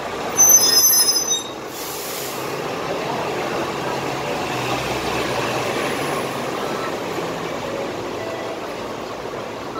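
Busy city street traffic, with a loud, high-pitched metallic squeal from a large vehicle's brakes or wheels starting about half a second in and lasting about a second; steady traffic noise runs on after it.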